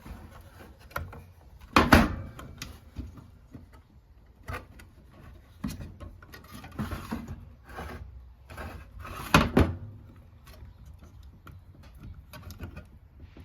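Handling noises of clear plastic tubing and retainer clips being fitted onto a metering valve: scattered clicks and rustles, with two louder knocks about two seconds in and near nine and a half seconds.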